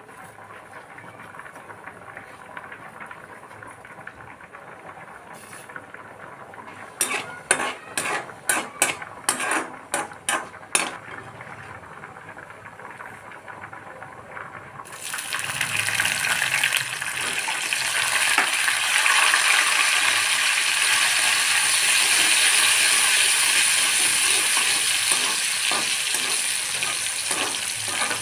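A quick run of sharp clinks of a steel spatula on an aluminium kadai about seven seconds in, then, about fifteen seconds in, a loud steady sizzle as chopped garlic goes into hot oil with tempered cumin and mustard seeds and is stirred.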